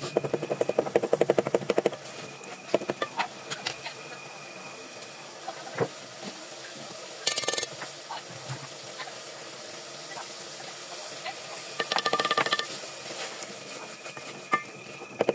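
Cooking sounds: quick runs of rapid knife chopping on a cutting board at the start and again about twelve seconds in, with scattered single clicks and a steady hiss underneath.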